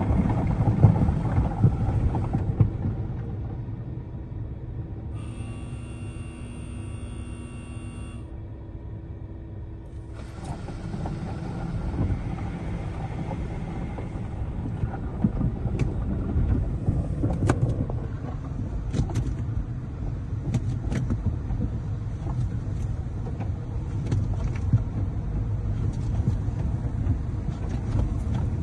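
Automatic tunnel car wash heard from inside the car's cabin: spinning wash curtains and water spray rumbling against the body, louder for the first couple of seconds. A steady tone lasts about three seconds early on, and sharp taps hit the car a little past the middle.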